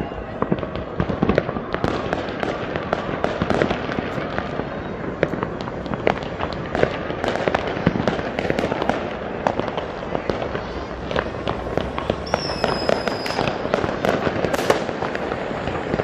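Many fireworks and firecrackers going off at once in a dense, continuous run of cracks and pops, with a high whistle lasting about a second near the end.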